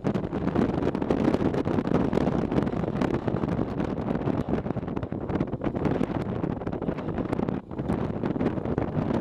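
Suzuki V-Strom motorcycle riding over a rough dirt track, heard as a steady rumble of wind on the microphone with frequent knocks and rattles from the bumpy surface. The sound drops briefly near the end.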